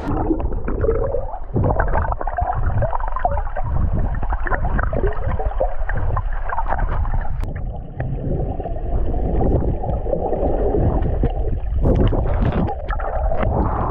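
Muffled underwater sound from a submerged camera: water gurgling and sloshing with short knocks and bubbles, the higher sounds cut away.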